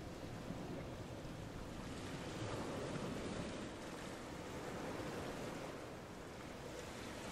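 Steady rushing noise, like wind, swelling a little midway.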